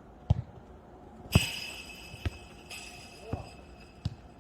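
Jokgu ball being kicked and bouncing on the court: a string of sharp thuds, about five in all, the loudest about a second and a half in. Right after that loudest hit, a high ringing tone sounds for about two seconds.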